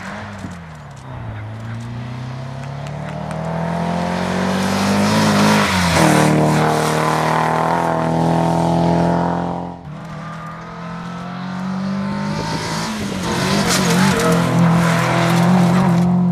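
Rally car engines revving hard at speed on a gravel stage. One car climbs in pitch and loudness as it approaches and drops in pitch as it passes. After a sudden break about ten seconds in, a second car is heard accelerating through its gears.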